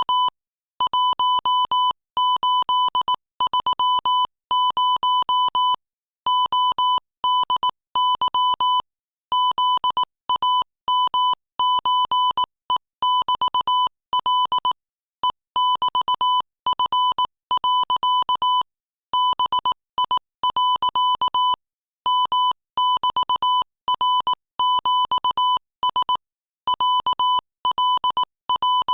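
Morse code sent at 22 words per minute: one steady-pitched beep keyed rapidly on and off in dots and dashes, with short pauses between letters and longer ones between words.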